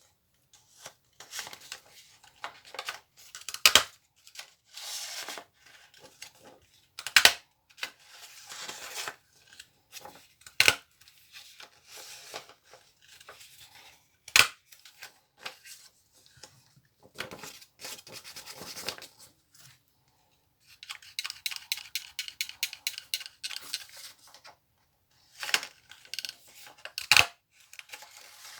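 ASMR trigger sounds of objects handled close to the microphone: sharp taps and clicks every few seconds with scratching and rubbing between them, and a fast run of ticks about three quarters of the way through.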